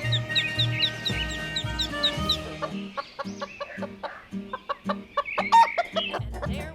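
Chickens clucking over background music, with quick repeated bird chirps in the first couple of seconds.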